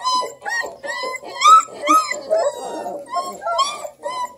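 Three-week-old Redbone Coonhound puppies whining and yipping: a string of short high calls that rise and fall in pitch, about two or three a second.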